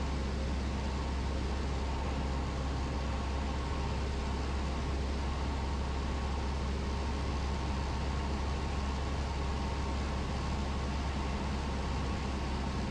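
Cessna 172's engine and propeller running steadily in flight, heard inside the cockpit as a constant low drone with an even hiss over it.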